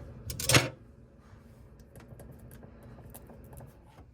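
Refrigerator air damper motor clicking and rattling: a quick cluster of loud clicks in the first second, then fainter scattered clicks. This is the faulty damper motor's noise that the fridge makes a couple of times a day.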